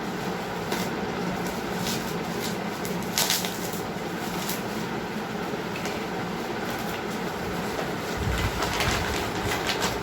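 Plastic product packaging being handled and unwrapped: scattered short rustles and crinkles, the loudest about three seconds in and a cluster near the end, over a steady background hum.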